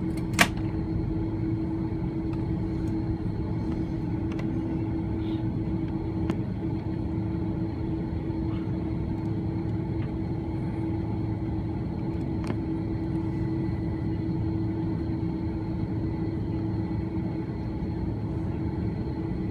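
Steady cabin noise inside an Airbus A330-300 taxiing on the ground: a constant hum with a low rumble, and one sharp click about half a second in.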